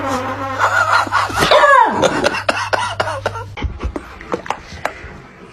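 A small puppy whining and yelping, its cries bending up and down and sliding down in pitch about two seconds in, then a run of short sharp clicks.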